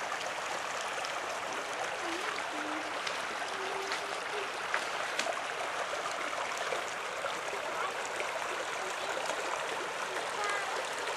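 Shallow creek running over stones, a steady rushing of water.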